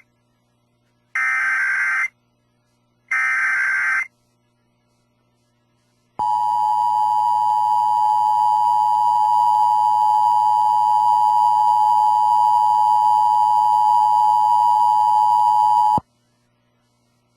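Emergency Alert System header: two harsh, buzzing digital data bursts about a second long, a second apart, then the two-tone EAS attention signal sounding steadily for about ten seconds and cutting off sharply.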